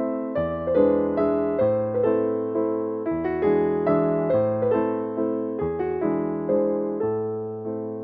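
Piano background music: a flowing run of single notes over held low notes that change every two to three seconds, growing a little softer near the end.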